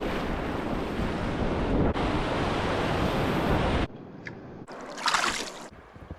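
Loud rushing water noise of a river, mixed with wind buffeting the microphone, in short edited clips. It drops to a quieter rush about four seconds in, with a brief louder hiss around five seconds.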